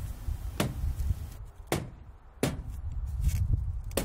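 Mallet blows knocking a foam insulated concrete form corner unit down into place: about five sharp knocks, roughly a second apart, over a low steady rumble.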